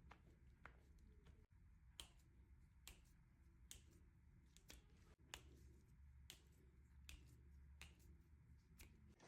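Faint series of sharp cracks and pops, about a dozen at roughly one a second, from joints cavitating under chiropractic adjustment, over a low steady room hum.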